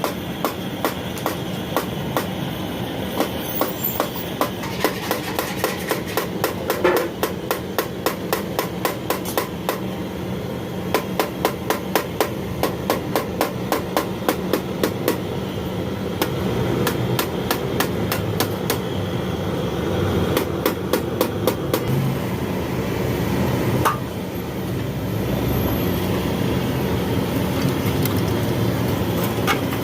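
Rapid light hammer taps on metal, about four a second, in runs with short breaks, over a steady background hum.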